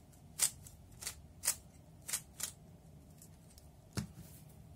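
Layers of a 3x3 plastic puzzle cube being turned in quick succession as the Sune algorithm is performed. Each turn gives a short clack, about one every half second, with a louder one about four seconds in.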